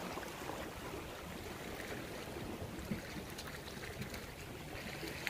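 Seawater washing against the rocks of a jetty, a steady quiet wash with one faint click about three seconds in.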